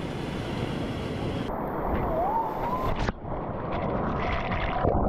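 Waves breaking on a sandy beach with wind on the microphone, and a brief rising tone about two seconds in. Just after the midpoint the sound changes to close splashing and churning sea water around a camera at the surface as a swimmer moves through the surf.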